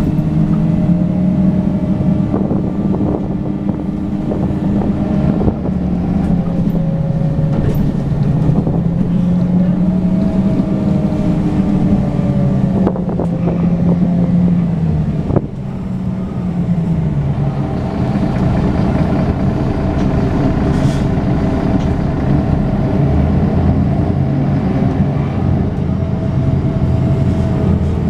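A 2001 Mercedes-Benz Citaro city bus's OM906hLA six-cylinder turbodiesel, heard from inside the passenger cabin while driving. The engine note rises and falls repeatedly, with a sudden brief dip in level about fifteen seconds in.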